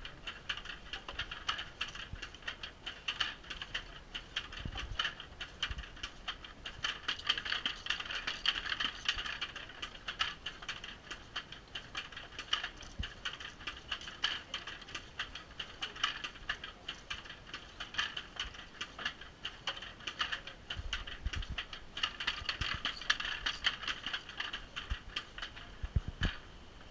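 Wooden handlooms clattering as they are worked, a fast, continuous rattle of wooden clacks and knocks from the beaters, shuttles and treadles.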